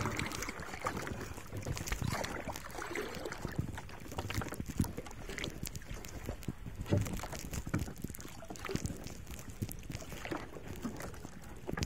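Water slapping and splashing against a small boat's hull on choppy sea, with irregular knocks and wind buffeting the microphone.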